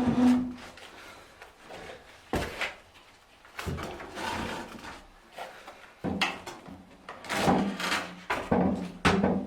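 Intermittent knocks and clatter of handling work: several separate thuds and bumps, the busiest stretch in the last third, with quieter gaps between.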